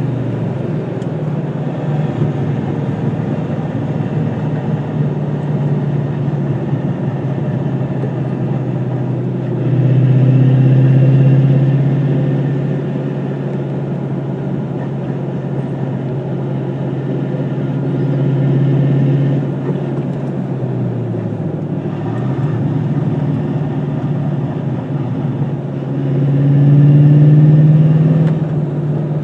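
2002 Ford Mustang GT's 4.6-litre V8 running steadily, with the engine speed rising and falling three times and dipping briefly about two-thirds of the way through.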